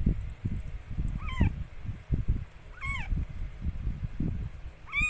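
Newborn kittens mewing: three short, high-pitched cries that rise and fall, about a second and a half apart, over a low, uneven rumble.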